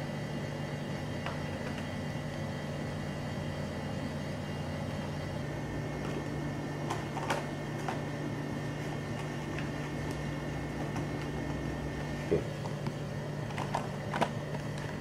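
A steady low mechanical hum, with a few short sharp clicks and crinkles as cardboard lids are pressed onto aluminium foil food trays, mostly in the second half.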